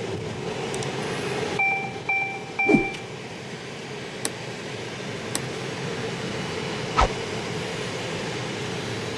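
Steady road and engine noise heard inside a moving car's cabin. About two seconds in come three short, evenly spaced two-tone electronic beeps, followed later by two sharp clicks and a thump about seven seconds in.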